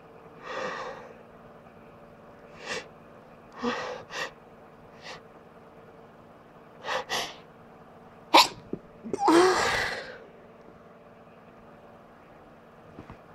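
A person sneezing: a string of short, breathy in-breaths building up, then a sharp sneeze about eight seconds in, followed at once by a longer sneeze with a voice in it.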